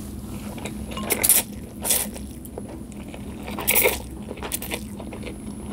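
Noodles in broth being slurped close to the microphone: three loud slurps, about one, two and nearly four seconds in, with light clicks between them.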